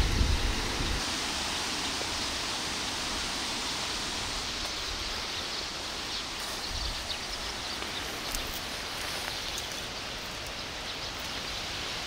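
Strong wind rustling the leaves of trees and bushes, a steady hiss, with a gust buffeting the microphone in the first second.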